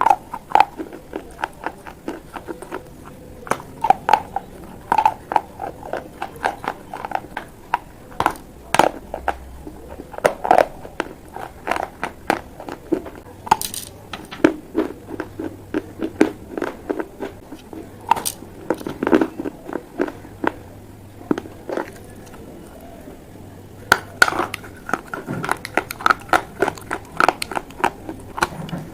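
Close-miked biting and chewing of baked clay pot pieces: a continuous run of sharp, brittle crunches and crackles, several a second.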